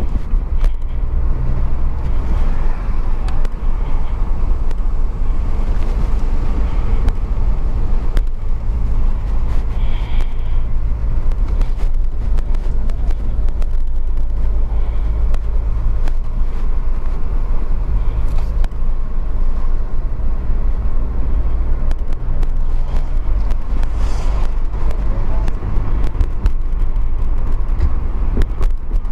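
Car driving at road speed, heard from inside the cabin: a steady low rumble of engine and tyres on the road.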